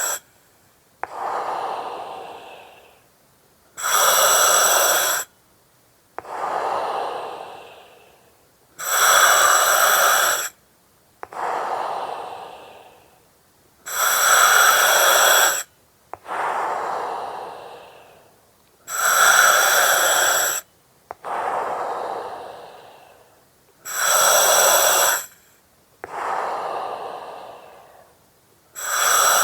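Slow, regular breathing through an oxygen mask, with the hiss of its regulator. Each breath is a loud hiss with a whistling edge that starts and stops sharply, followed by a softer breath that fades away, about one full breath every five seconds.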